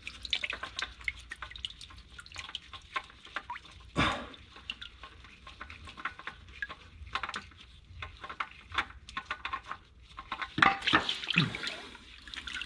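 Motor oil dripping and trickling into a drain pan as a stuck oil filter is worked loose, with irregular small patters and a couple of louder knocks from handling the filter.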